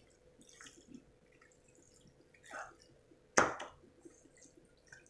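Wooden spatula stirring thick white-sauce macaroni in a coated frying pan: soft wet squishing and light scrapes, with one sharp knock against the pan about three and a half seconds in.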